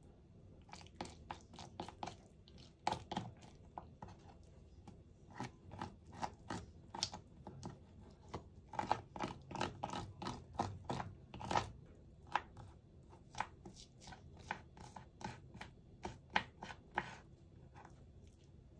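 Kitchen knife chopping on a cutting board: a run of irregular sharp cuts and knocks, thickest and loudest about nine to twelve seconds in.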